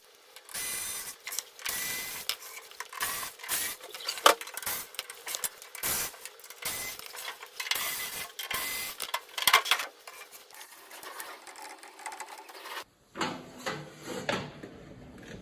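Tool work on a microwave's fan assembly: short, irregular bursts of mechanical whirring, scraping and rattling, changing to a lower-pitched rattling about thirteen seconds in.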